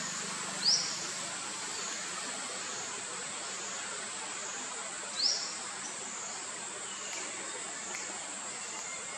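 Steady high-pitched insect drone over forest ambience. Two brief, sharply rising high calls about four and a half seconds apart are the loudest sounds.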